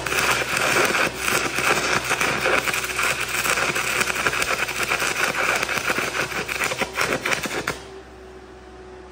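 Stick welding arc of a 7018 electrode run at 800 amps: a loud, steady crackle and sputter that cuts off about eight seconds in as the arc is broken, leaving a faint steady hum.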